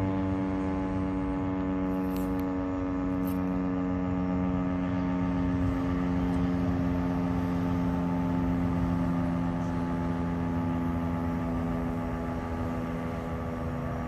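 Outdoor fire siren sounding a steady two-note chord at full pitch, the signal for a fire company call. It sags slightly in pitch and loudness near the end.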